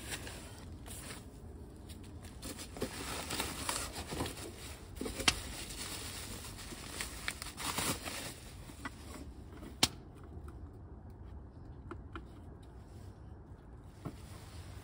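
Bubble wrap and a cardboard box rustling and crinkling as a portable power station is unpacked by hand, with scattered sharp clicks, two louder ones about five and ten seconds in. Quieter in the last few seconds.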